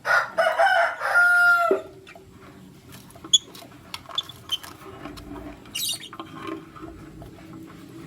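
A rooster crows once, a loud call of nearly two seconds with a held note that drops sharply at the end. Faint short high chirps and clicks follow.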